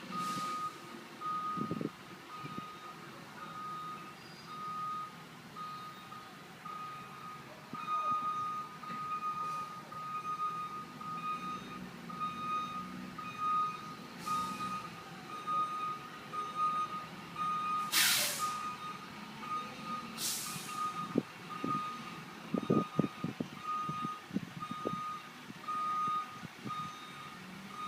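International 3800 school bus's backup alarm beeping steadily at one pitch while the bus reverses. Short air-brake hisses come about halfway through and twice more a few seconds later; the second is the loudest.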